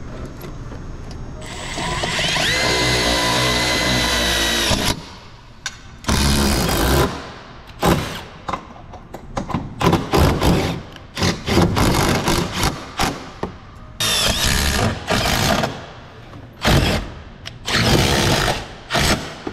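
Compact cordless power driver with a socket on a long extension, driving fasteners: one long run of about three seconds with a whine that rises and then holds, then a string of short trigger pulls, each a second or less.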